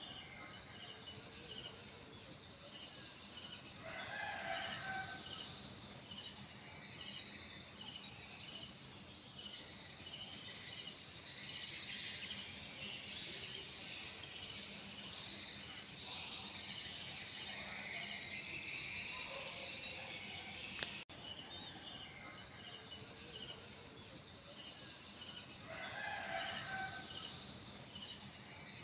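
Crickets chirping steadily, with a rooster crowing twice: about four seconds in and again near the end.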